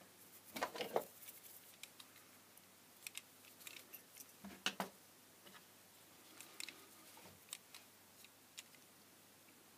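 Scattered light clicks and taps of small objects being handled on a bench: a tiny circuit board set down and a pocket microscope picked up and held, with the loudest knock a little before halfway.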